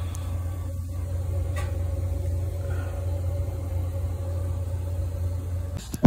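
Steady low machine hum with a faint, steady higher whine over it, stopping abruptly near the end.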